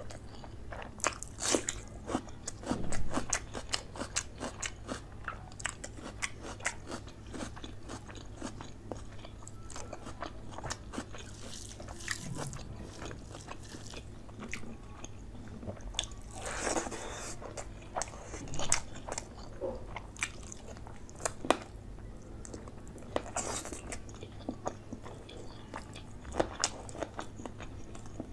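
Close-miked chewing of chicken curry and rice, with crunches and many short, sharp wet mouth clicks scattered irregularly, a few louder bites standing out.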